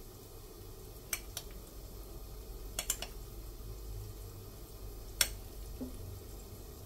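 A metal spoon clinking sharply against a ceramic plate about five times while samosa filling is scooped, the loudest clink about five seconds in, over a low steady hum.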